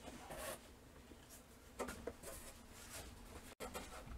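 Faint rustling and a few short scuffs as a tote bag and the contents of a cardboard box are handled.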